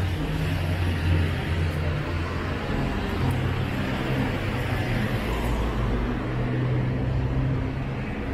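City street traffic: motor vehicles running close by, a steady low engine hum over road noise, the hum shifting in pitch a few times.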